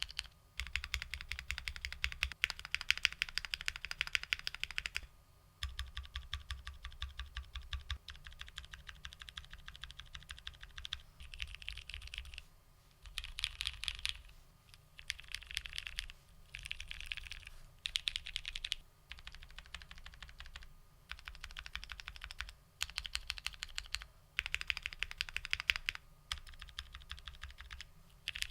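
Custom mechanical keyboard being typed on at a steady fast pace, many key clicks a second. The typing comes in runs broken by short pauses.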